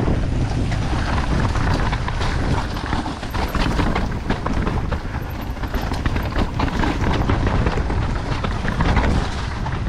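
Downhill mountain bike riding a rough, wet trail: tyres on dirt and roots, with irregular clattering knocks and rattles from the bike's chain and frame.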